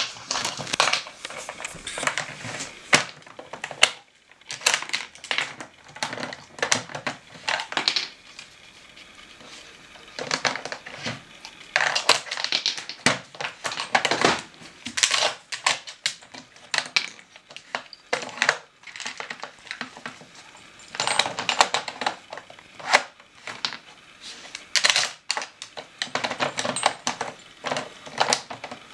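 Hard plastic pieces of a dog treat puzzle clacking and rattling in irregular bursts as a dog noses and pushes its sliding segments and bone-shaped pegs, with a quieter stretch early on before the clatter picks up again.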